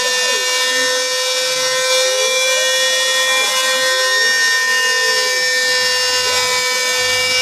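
CNC router carving: the spindle runs with a steady, even whine over a cutting hiss, while fainter tones rise and fall as the drive motors speed up and slow down the carriage.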